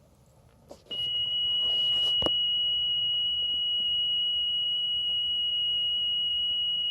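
A steady high-pitched tone from a Commodore VIC-20 data cassette playing back. It starts about a second in and holds at one even pitch, with a faint click near the start and another about two seconds in.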